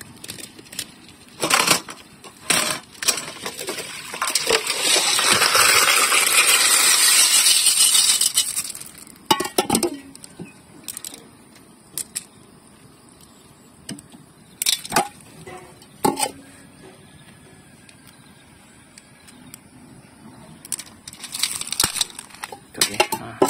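Siput sedut snail shells clinking and rattling against a stainless-steel colander and pot in scattered sharp clicks. Water pours and splashes for about five seconds as the muddy soaking water is drained off the snails.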